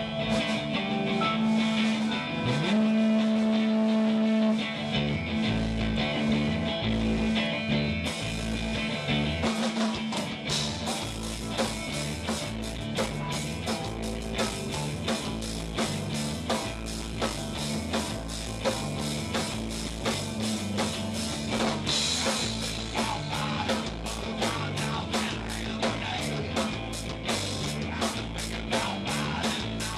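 Rock music with electric guitar and drum kit. Held guitar notes open it, the drums come in about eight seconds in and keep a steady beat, and cymbals get louder about two-thirds of the way through.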